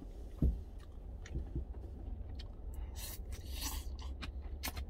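Eating sounds: a knock about half a second in, then wooden chopsticks scraping and clicking against a stainless steel food container, and a slurp of stew from the container a little after three seconds in, over a steady low hum.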